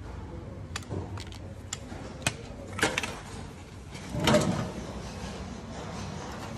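Sharp plastic and metal clicks and knocks as the old bilge drain plug housing is worked out of a Sea-Doo's hull with a tool. The louder clatter comes about four seconds in.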